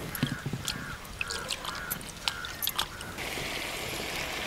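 Wet, soaked basmati rice dropped by hand into a pot of boiling water, with light clicks and patter of grains, while a bird calls repeatedly in the background. About three seconds in, a steady hiss of the boiling pot takes over.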